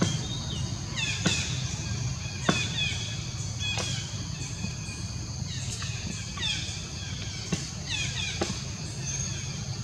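Several short high chirps, each opening with a sharp click and falling quickly in pitch, over a steady low hum.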